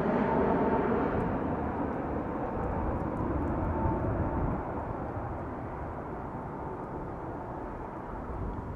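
Boeing 787 jet airliner with its landing gear down on approach, its engine rumble fading as it flies away. A faint steady whine sounds over the rumble in the first few seconds, and the higher sounds die away first, leaving a low rumble.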